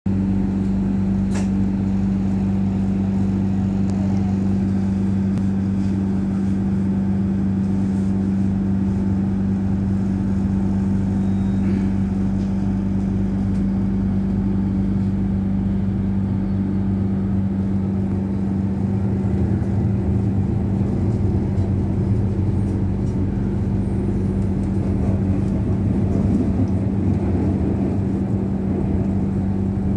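Airport Rail Link electric train running at speed, heard from inside the carriage: steady running noise with a constant low hum throughout, swelling somewhat in the last third. One sharp click a little over a second in.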